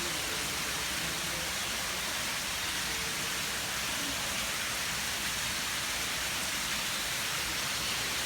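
Steady, even rushing noise with no distinct events, like water, rain or wind.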